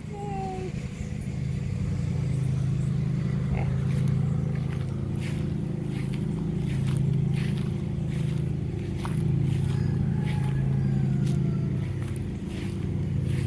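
Steady drone of a small engine, taken for a generator or a pressure washer, running without a break and swelling slightly now and then, with scattered light clicks over it.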